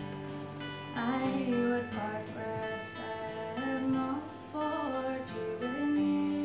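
A young woman's solo voice singing a slow traditional Irish ballad to her own picked acoustic guitar. The guitar plays alone for about the first second, then she sings a phrase that ends on a long held note near the end.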